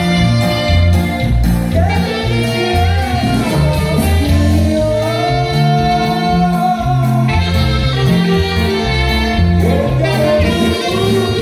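Live Mexican regional dance band playing a song: a singer over a steady bass line that steps between two notes, with sustained instrument chords. The singing comes in a couple of seconds in and again near the end.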